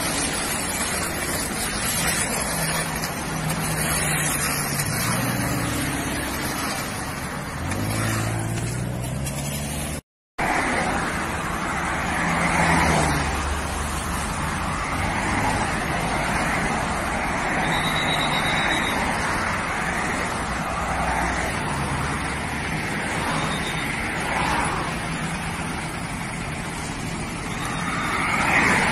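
Road traffic: vehicle engines running and cars passing on a wet road, a steady rushing noise throughout. The sound cuts out briefly about ten seconds in.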